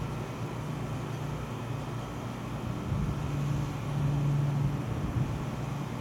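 Steady outdoor background rumble with a low hum that grows louder about four seconds in.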